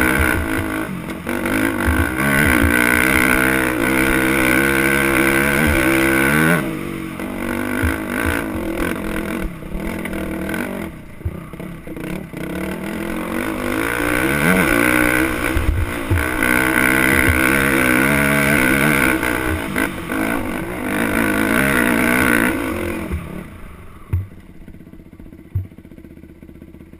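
Dirt bike engine pulling hard up a steep, loose hill climb, heard from the rider's seat, revving up and down as the throttle is worked. Near the end it drops to a low idle, with two short knocks.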